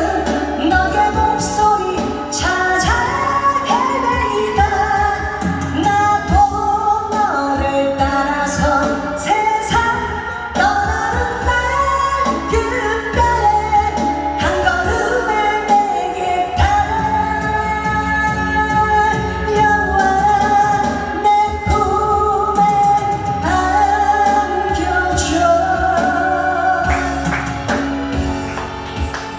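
A solo singer performing a Korean pop song over instrumental accompaniment with bass and drums.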